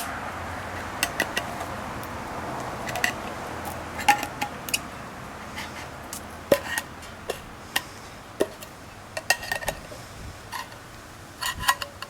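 Irregular small clicks and clinks of tools and containers being handled on a work surface, some ringing briefly, with a cluster near the end.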